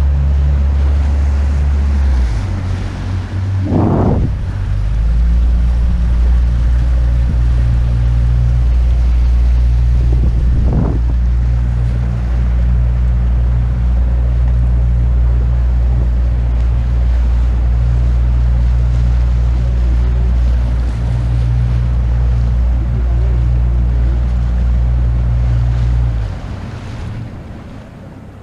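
Boat motor running with a steady low drone, water and wind noise over it; the drone shifts slightly about two seconds in and dies down near the end.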